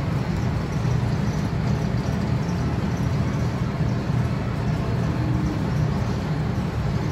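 Steady low rumbling background noise that holds at one level throughout.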